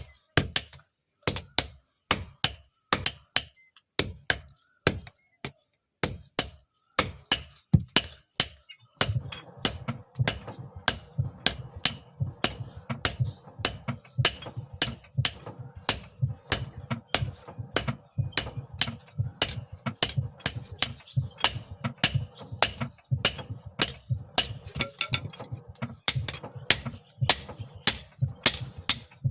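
Hand hammer striking a steel file on an anvil, forging it into a knife blade: quick runs of ringing metallic blows, several a second, with short pauses between runs. About nine seconds in, a low steady hum joins under the blows.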